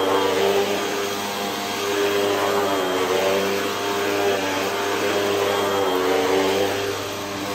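Hoover WindTunnel upright vacuum cleaner running loud as it is pushed over carpet, its motor whine steady but wavering slightly in pitch and loudness.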